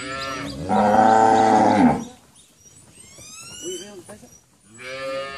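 Young cattle mooing: one long, loud moo about a second in, lasting about a second, and another moo starting near the end.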